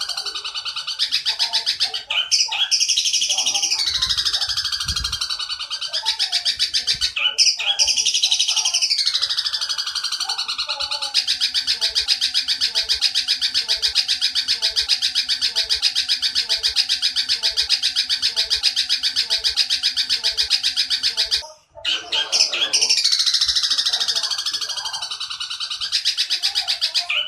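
Eurasian tree sparrow chattering, from a bird-training recording meant to teach young long-tailed shrikes: repeated high, falling, rattling calls, then a long unbroken rapid chatter that runs for about ten seconds before breaking off briefly. A fainter low sound repeats about once a second beneath the long chatter.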